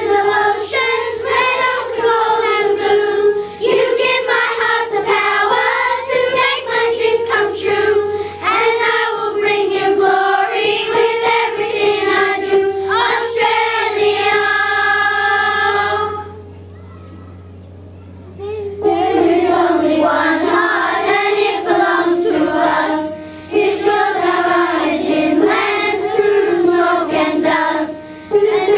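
Children's school choir singing together, with a break of about two seconds a little past the middle before they start again.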